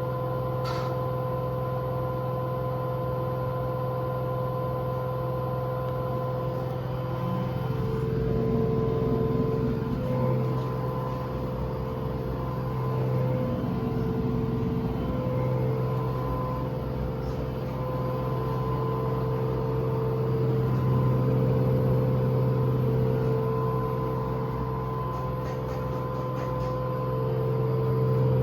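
Washing machine on its high-speed spin at maximum RPM: a steady hum from the motor and drum with a thin whine over it, swelling and easing in loudness every several seconds.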